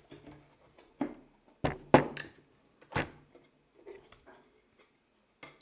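Knocks and clatter of an arcade joystick box being handled as its lid is lifted off: about five sharp knocks in the first three seconds, the loudest about two seconds in, then a few lighter taps.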